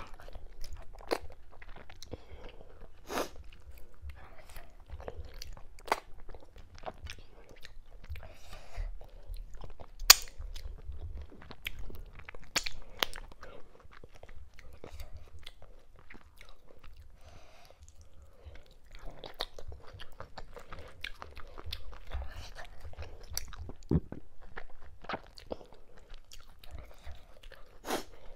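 Close-miked chewing and mouth sounds of someone eating fufu with okra-ogbono soup, cow skin and mackerel by hand: irregular small clicks and chewing, with one sharp, loud click about ten seconds in.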